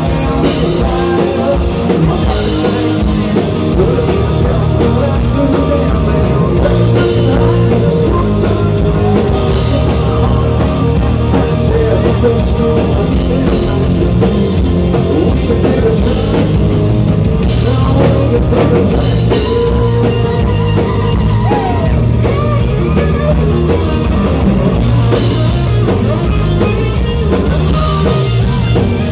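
Live country band playing at full volume: drum kit and amplified guitars.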